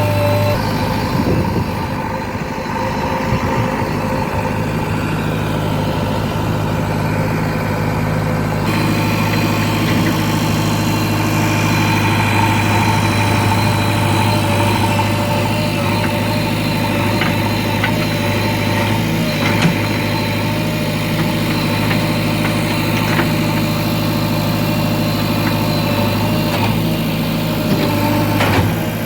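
JCB 3DX Eco Xpert backhoe loader's diesel engine running steadily at a constant pitch, with the sound turning fuller and brighter about nine seconds in. A few faint knocks come over it.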